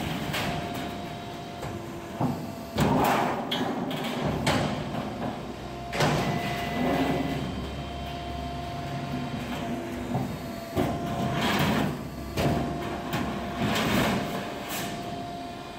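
An air-duct production machine running with a faint steady hum while thin sheet-metal panels are handled and fed through its rollers. Repeated metallic clanks and sheet-metal rattles come every second or two.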